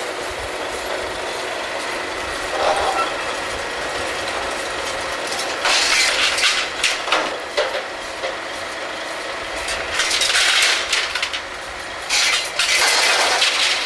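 Drilling rig floor machinery running steadily while the crew makes a pipe connection with the tongs, with several loud bursts of metal-on-metal noise, about 6, 10 and 12 seconds in.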